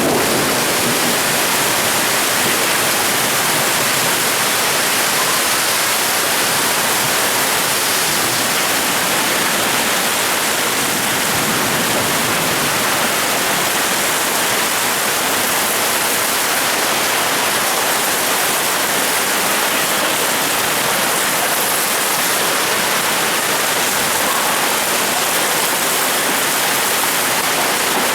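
Heavy storm rain pouring down in a steady, unbroken roar.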